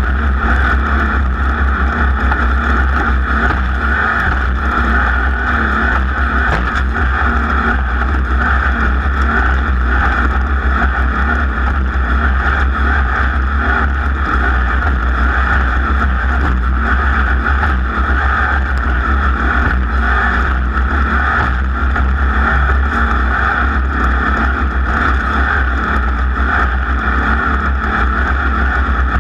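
A race vehicle's engine running steadily and loudly at speed through a lap.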